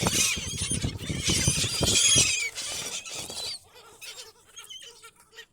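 A flock of seagulls crying at once with high, wavering squeals over a low rumble, loudest in the first two seconds and dying down to fainter calls after about three and a half seconds.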